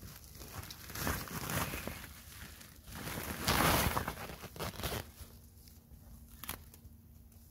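A woven plastic sack rustling and crinkling as it is pulled, lifted and shaken out. It is loudest about halfway through and ends with a single sharp knock.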